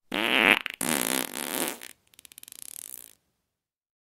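Fart sound effect: a long, wavering blast with a brief break about three-quarters of a second in, trailing off into a fast sputter that stops about three seconds in.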